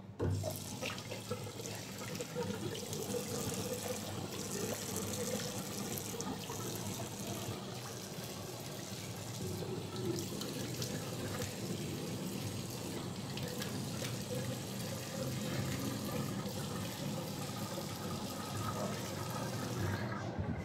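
Water running steadily from a lever tap into a washbasin: turned on at the start and shut off at the end.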